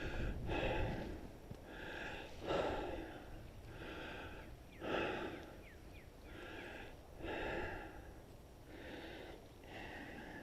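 A person breathing hard and close up, a breath in or out about every second.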